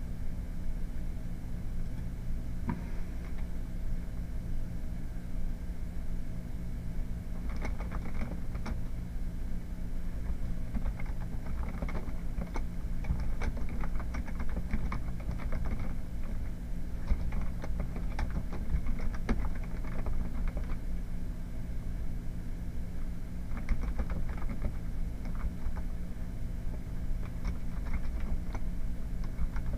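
Typing on a computer keyboard: irregular runs of keystroke clicks that start several seconds in, over a steady low hum.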